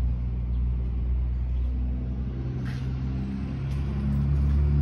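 A vehicle engine running steadily: a low rumble with a steady hum, starting and stopping abruptly.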